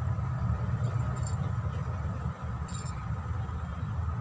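Steady low background hum with two brief crisp clicks, about a second in and just before three seconds, as a fried bread pakoda is handled at the plate and eaten.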